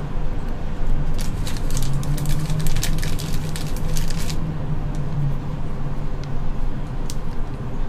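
Clear plastic zip-lock bag crinkling and rustling as hands press and fold it around dumplings, mostly in the first half, with one more crackle near the end, over a steady low hum.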